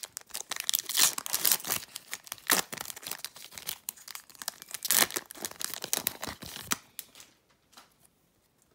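Foil trading-card pack wrapper being torn open and crinkled by hand: a dense, irregular crackling rustle that dies away about seven seconds in.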